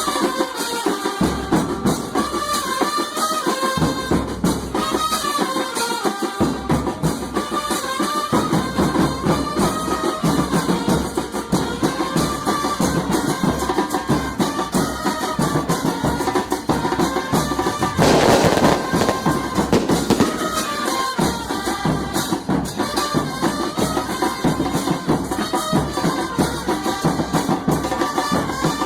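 Music with drums and percussion keeping a steady rhythm under a melody line, with a brief louder noisy swell about eighteen seconds in.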